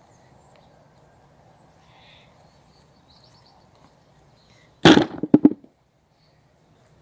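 Potato digging with a garden fork: about five seconds in, one loud knock followed by a quick rattle of three or four smaller knocks, over faint outdoor background.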